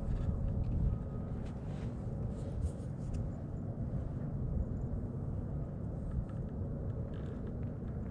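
Wind rumbling on the microphone, with a few faint ticks in the first three seconds.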